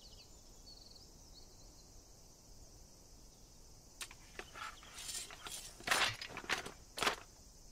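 Faint outdoor ambience with a few thin high chirps, then, from about halfway, a run of sharp clicks and short swishes as a sword blade is slid back into a wooden prosthetic arm, with two loud clicks near the end.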